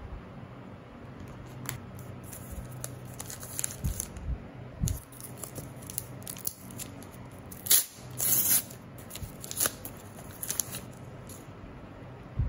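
Panini Adrenalyn XL trading-card pack being torn open by hand: a run of short ripping and crinkling sounds, loudest about eight seconds in.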